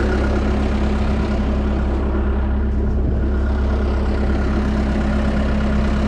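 A vehicle engine idling steadily, with a faint high whine over it.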